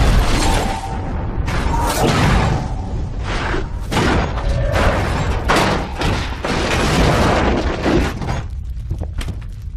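Film sound effects of a nuclear blast wave: a heavy, continuous low rumble of rushing wind and debris, broken by repeated crashes and thuds as a metal refrigerator tumbles and slams across the ground.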